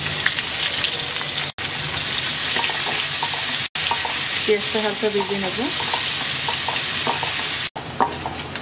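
Sliced onions sizzling in hot oil in a karahi, stirred with a wooden spatula that clicks and scrapes against the pan. A steady, loud sizzle that cuts out abruptly three times.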